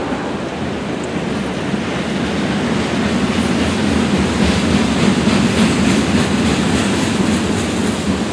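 Freight cars rolling over a concrete railway bridge: a steady rumble of steel wheels on rail with repeated clicks over the rail joints, growing a little louder about three seconds in.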